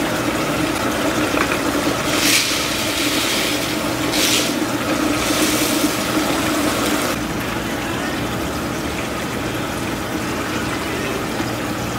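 Coin-operated laundromat washing machines running with a steady hum. Water rushes in three spurts, about two, four and five seconds in, as a machine fills.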